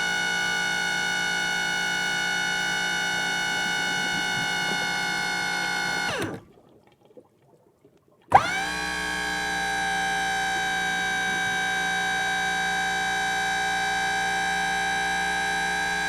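Hydraulic boat lift's pump motor running with a steady whine, then winding down in pitch and stopping about six seconds in. After about two seconds of quiet it starts again with a sharp click and runs steadily.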